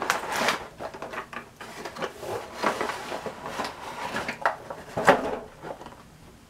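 A clear plastic packing tray being handled and slid out of a cardboard box, crinkling and clacking in irregular bursts, loudest right at the start and about five seconds in.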